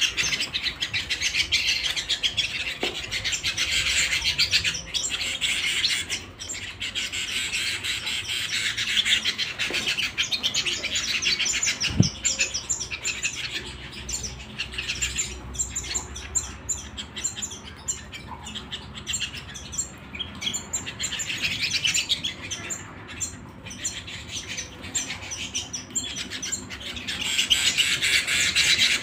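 Domestic canary singing: long, high-pitched runs of rapid trills and rolling phrases, with a single sharp click about twelve seconds in.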